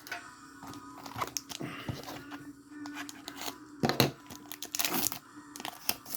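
Foil wrapper of a Pokémon card booster pack being torn open and crinkled: a run of sharp crackles, loudest about four seconds in.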